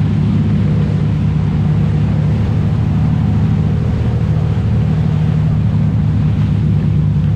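Sport-fishing boat's engine running steadily, a constant low drone.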